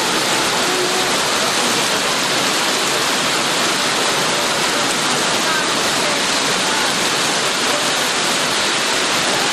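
Heavy rain pouring down in a steady, dense hiss that does not let up.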